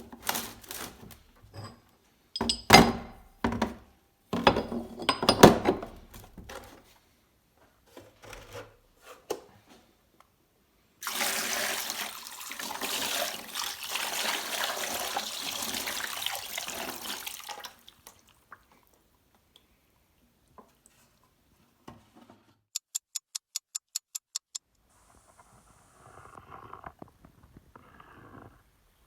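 Metal vise parts knocked and set down several times, then about seven seconds of rushing water. Near the end comes a quick, even run of about ten sharp clicks.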